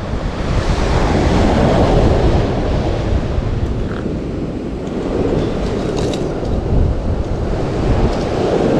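Waves breaking on a gravel beach, with wind buffeting the microphone. The surf swells about a second in and again near the end. A few faint clicks come about six seconds in.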